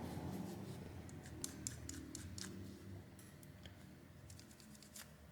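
Faint scattered light clicks and rubbing from a microfiber cloth wiping a phone's camera glass.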